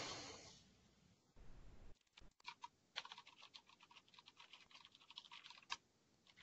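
Faint typing on a computer keyboard: a quick run of light key taps through the middle, over near silence.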